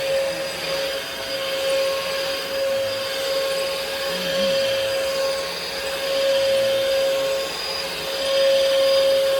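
Bissell PowerForce Helix vacuum cleaner running steadily: a constant motor whine over the rush of air, swelling a little near the end.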